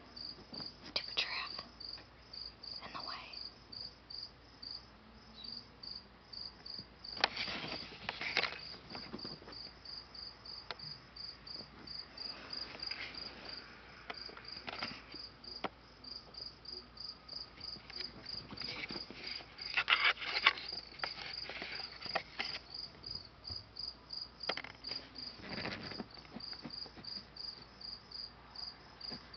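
Pet rabbit scratching and digging at bed fabric in short scrabbling bouts, loudest about seven to nine seconds in and again around twenty seconds in. A high, regular chirp, about three a second, runs underneath the whole time.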